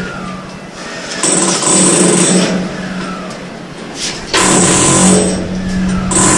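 Power hammer drill running in bursts, drilling into a concrete wall. There is a burst of about a second a little over a second in, and a longer one from about four seconds in.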